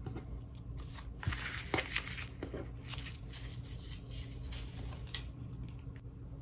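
Close-miked handling of a new gaming headset: plastic packaging being pulled and torn off, with rustles and small clicks, busiest about two seconds in and dying down near the end.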